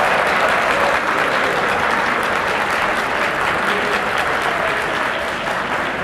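Audience applauding a point awarded in a kendo match: dense clapping that slowly fades.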